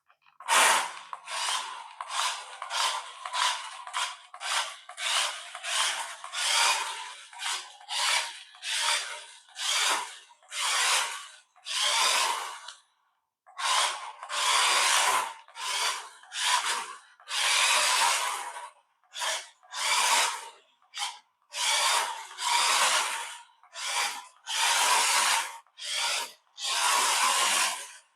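Toy-grade RC car's small electric drive motor and gearbox running in short on-off bursts, about one a second, with a longer pause about halfway through. This is all-or-nothing throttle with no proportional control, the kind that spins the wheels on take-off.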